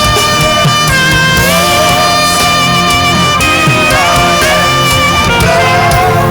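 Live gospel worship music: a saxophone playing long held notes that step to new pitches every second or two, over a band backing.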